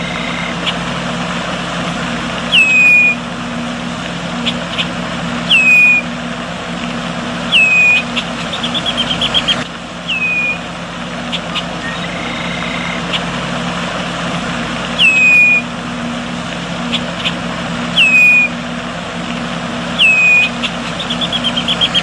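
Red-winged blackbird calling: a short down-slurred whistled note repeated every two to three seconds, twice broken by a quick chattering run of short notes. A steady low hum runs underneath.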